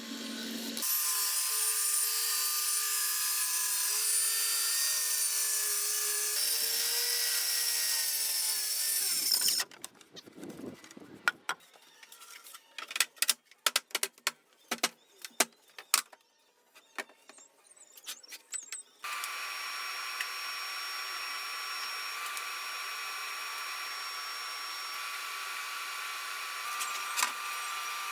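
A power tool running for about nine seconds, its pitch wavering under load, then a stretch of scattered clicks and knocks, then a power tool running steadily again.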